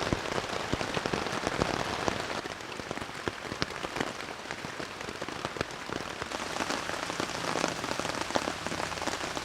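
Heavy rain falling on a tent, a dense, steady run of many separate drop hits.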